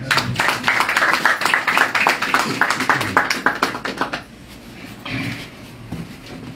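Audience applauding with dense, rapid hand claps, which die away about four seconds in.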